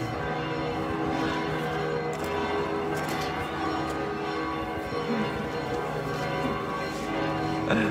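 Church bells pealing, many overlapping bell tones ringing on continuously over the murmur of a crowd.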